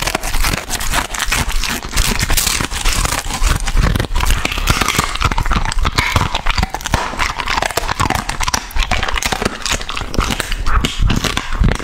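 Border Collie chewing and crunching raw food close to the microphone: a dense, continuous run of crunches and crackles.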